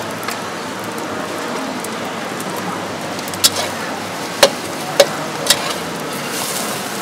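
Egg frying in hot oil in a steel wok, a steady sizzle. A metal spatula strikes the wok four times in the second half, with sharp clanks.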